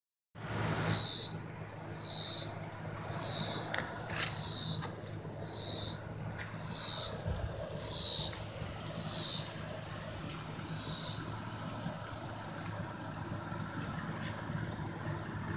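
A cicada calling in a run of about nine swelling, buzzing pulses, roughly one a second, that stop about eleven seconds in. A faint steady buzz in the same high pitch carries on after them.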